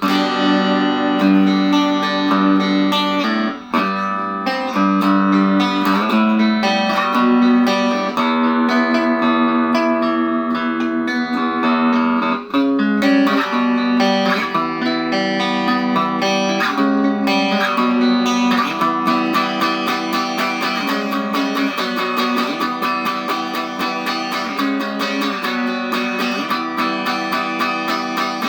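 Electric guitar, a 1985 Made-in-Japan Fender Performer, played on its bridge pickup in single-coil mode through a Peavey Valve King Royal 8 valve amp with no effects. It rings out in held chords at first, then quicker picked notes from about two-thirds of the way through.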